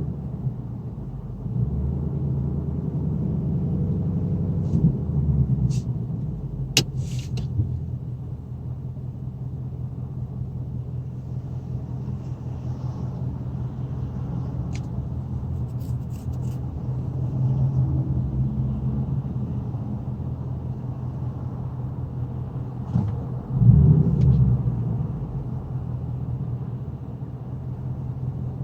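2018 Mustang GT's 5.0 Coyote V8 idling steadily with a low hum, with a short louder swell of rumble near the end.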